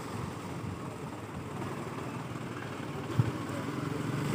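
Light truck's engine running at idle, a steady low rumble, with one short knock about three seconds in. Near the end a motorcycle engine comes closer and grows louder.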